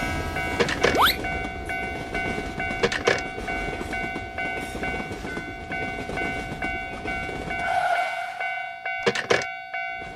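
Cartoon railroad crossing sound effects: a level crossing warning bell ringing in a steady repeating pattern over the rumble of a passing train. A rising whistle-like sweep and sharp clicks come about a second in, more clicks about three seconds in and twice near the end, and the train rumble drops away near the end while the bell keeps ringing.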